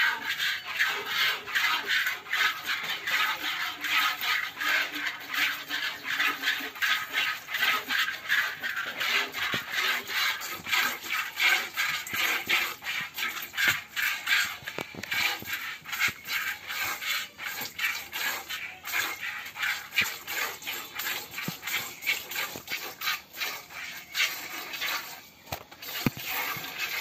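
Hand milking of a cow: milk squirting from the teats into a plastic bucket in a steady rhythm of squirts, about two to three a second.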